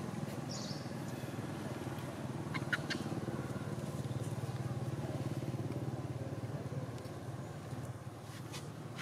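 A motor engine running steadily with a low hum that eases off after about seven seconds. A brief high chirp sounds near the start, and a few faint clicks come around three seconds in.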